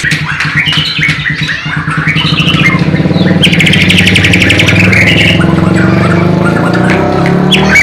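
Bornean murai batu (shama) singing varied chirps and whistles, with a fast buzzy trill about halfway through, part of its mimicked sikatan londo / nightingale repertoire. A low steady drone starts with it and grows louder underneath.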